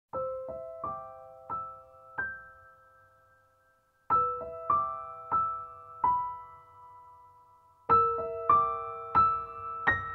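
Background music: a soft piano melody of single notes in short phrases, each note fading away, with a brief near-silent pause about three and a half seconds in.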